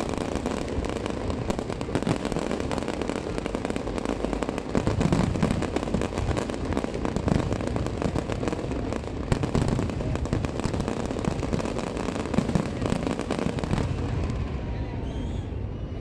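Fireworks display: aerial shells bursting one after another in a dense, continuous run of deep booms and sharp crackling. The crackle thins out near the end.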